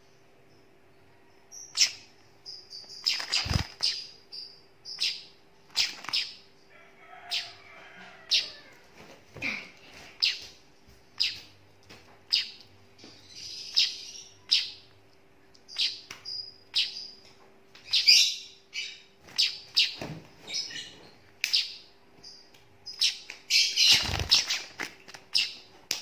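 Juvenile weaver bird (burung manyar) chirping over and over, short high chirps about once or twice a second. A faint steady hum runs underneath, and there are two loud knocks, one a few seconds in and one near the end.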